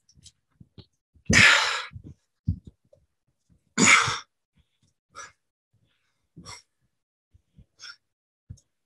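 A man breathing out hard twice, about two and a half seconds apart, while catching his breath after burpees. Softer breaths and a few light thumps follow.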